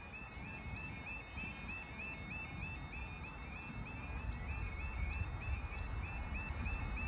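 A high chirp repeating about twice a second at an even pace, over a low rumble that grows louder from about halfway through.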